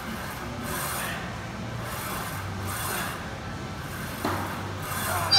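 Heavy, rasping breaths from a man straining through leg press reps, one about every one to two seconds.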